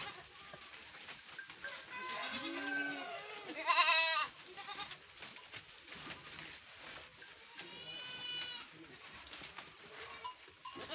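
A herd of domestic goats bleating several times. The loudest bleat comes about four seconds in, and a higher, thinner call follows near the end.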